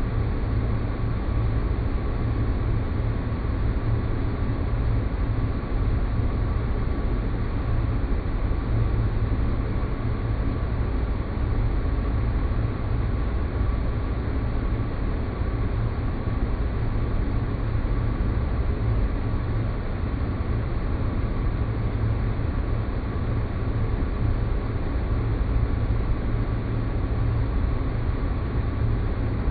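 Space-planet ambience sound effect: a steady, deep rumbling noise drone with a faint high steady tone running through it, unchanging throughout.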